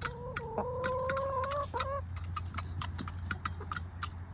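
Chickens pecking at treats, making quick irregular taps, while one chicken gives a single long drawn-out call lasting about two seconds that rises slightly in pitch and breaks briefly near the end.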